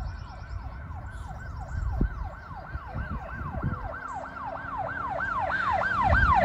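Police siren sound effect in a fast yelp: one pitch sweep after another rising and falling, about three a second, growing louder toward the end.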